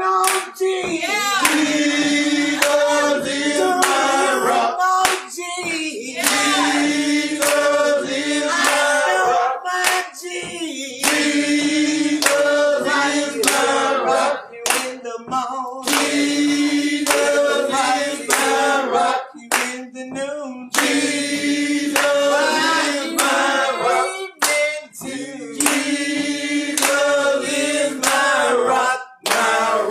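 Gospel praise-team choir singing with hand clapping, in phrases broken by short pauses every few seconds.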